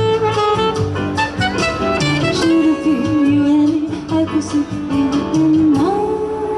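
Live jazz band playing a song: plucked guitar chords under a melody line, which slides up into a long held note near the end.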